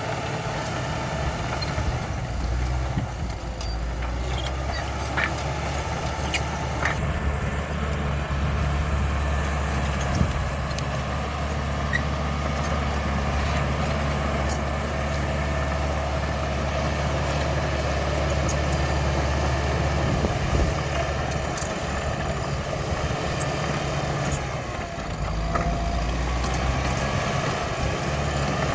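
CAT D5K XL bulldozer's diesel engine running steadily under work, with scattered clicks and one sharp knock about halfway through.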